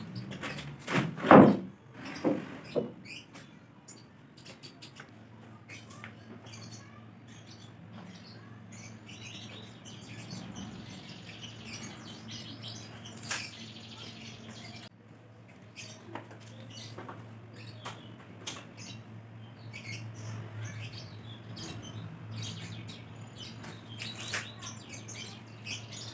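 A large plywood sheet lowered flat lands on wooden battens on a concrete floor with a loud flat thud about a second in, followed by a couple of smaller knocks. After that come a low steady hum, scattered light knocks and birds chirping.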